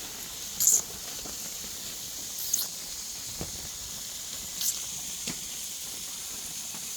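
Pork belly sizzling in a hot cast-iron cauldron with a steady high hiss and several sharp pops of spattering fat.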